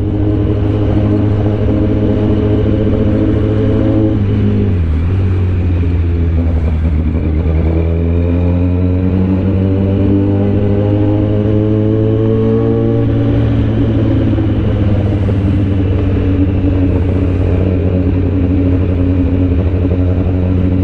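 Motorcycle engine running at low speed in slow traffic, heard from the rider's seat. Its pitch drops about four seconds in, climbs slowly over the next several seconds as the bike picks up speed, then holds steady.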